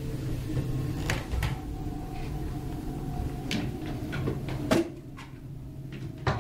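A handful of separate knocks and clicks of objects being handled, the loudest about three-quarters of the way through, over a low steady hum.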